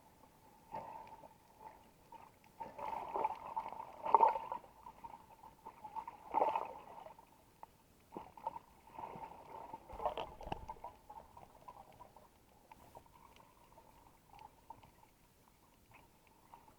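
Muffled water sloshing and gurgling in irregular bursts every second or two, over a faint steady tone.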